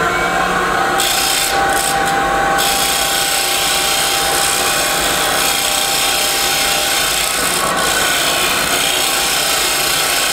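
Wood lathe running while a hand-held turning tool cuts the edge of a spinning bocote pendant blank, rounding its corner over: a steady scraping hiss over the lathe's even tone, sharpest for a second or so near the start.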